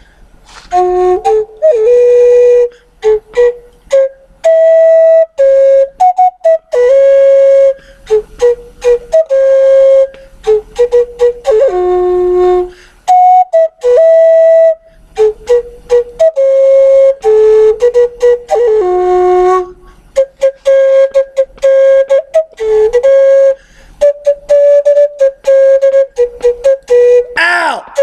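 Intro music: a solo flute-like melody in short, detached notes, with sharp clicks between them and a quick swooping pitch sweep near the end.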